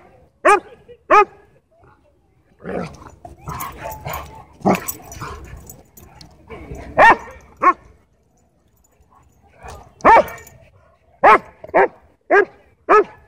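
Dogs barking in rough play, about nine short sharp barks in all. A couple of single barks come first, then a rougher, noisier stretch, and near the end a run of four barks about half a second apart.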